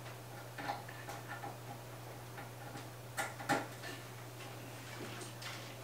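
Faint clicks and rustles of fan cables and small plastic connectors being handled and pushed onto a motherboard fan header, with a couple of sharper clicks about three seconds in, over a steady low hum.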